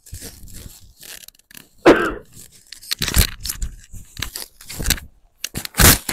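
Fabric rustling and brushing in irregular strokes as a new sweater is pulled on over the body, with a louder bump about two seconds in.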